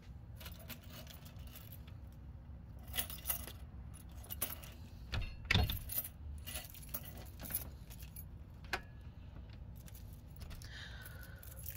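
Keys jangling, with scattered light clicks and knocks and a heavier thump about five and a half seconds in, over a low steady hum.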